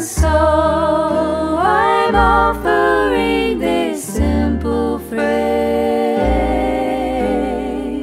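Three female voices singing in close three-part harmony, holding long notes with vibrato, over upright double bass notes.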